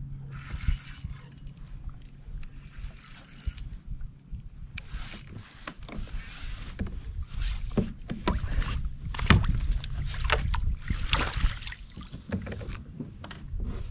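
A hooked fish being played and landed from a plastic fishing kayak: a string of knocks and clatters on the hull, with several bursts of splashing water, loudest about nine to eleven seconds in.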